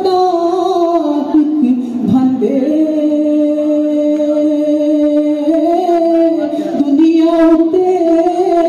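A man singing a kalam solo into a microphone in a slow, ornamented style. He slides between pitches and holds a long, steady note from about two and a half to five and a half seconds in.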